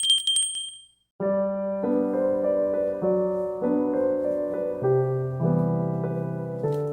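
A bright ding that rings out and fades within the first second, then gentle solo piano music with slow, changing chords.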